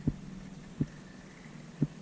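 Three short, dull thumps about a second apart, over a faint steady hum.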